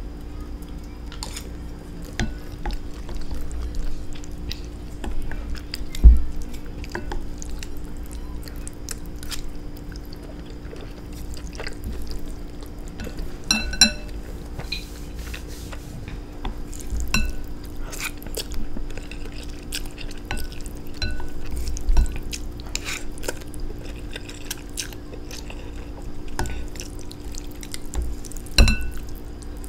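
Wet eating sounds of someone chewing Mama instant noodles, with many small clicks and a few ringing clinks of a utensil against a dish, and a few dull thumps, over a faint steady hum.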